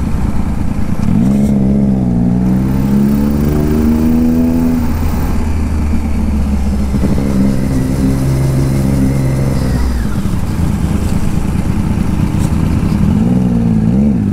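Motorcycle engine, most likely the rider's own TVS Apache RR310 single-cylinder, running at low road speed with the revs rising and falling, over wind rush on a helmet-mounted microphone. The revs climb about a second in, hold, drop away about ten seconds in and pick up again near the end.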